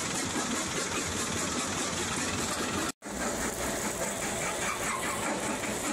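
Ore-processing machinery running steadily: a conveyor belt and vibrating feeder moving crushed quartz ore, giving a dense mechanical rumble and rattle. The sound cuts out completely for an instant about halfway through, then resumes.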